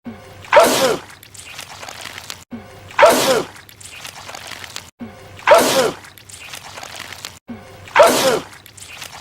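A man's loud sneeze, repeated four times at even intervals of about two and a half seconds as the same clip loops. Each sneeze is a sudden burst whose voice falls in pitch, followed by a quieter tail. It is a cartoonish movie sneeze that sprays out goo.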